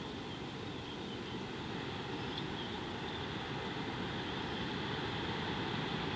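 Steady outdoor background noise: a low rumble with a fainter high hum over it, and a faint short chirp about two and a half seconds in.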